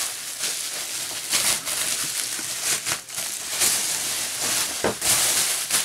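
Plastic bubble wrap crinkling and rustling as it is handled and pulled off a boxed figure, in a run of sharp crackly bursts.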